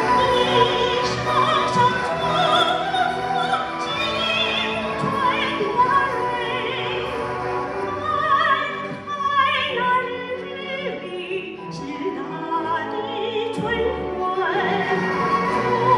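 A woman singing solo into a microphone in a trained, operatic style with wide vibrato, over orchestral accompaniment.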